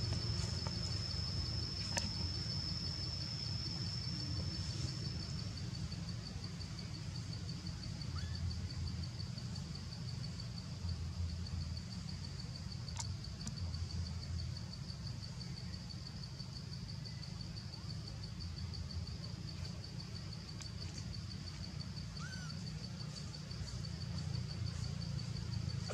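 Outdoor ambience: an insect's steady, high, fast-pulsing trill runs throughout over a low rumble, with a few faint clicks and two faint short chirps.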